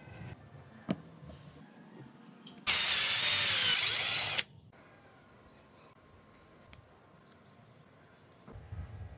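Cordless drill boring a hole through a thin square of grey PVC sheet. It runs for about a second and a half with a whine that wavers in pitch, then stops.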